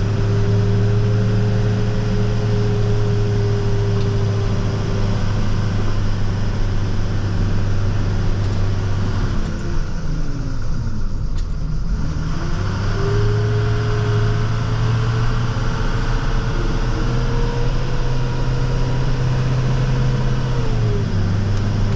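Plow truck's engine and drivetrain heard from inside the cab while driving, a steady drone with a whine. The pitch sinks as the truck slows about ten seconds in, then climbs again as it picks up speed, and dips briefly once near the end.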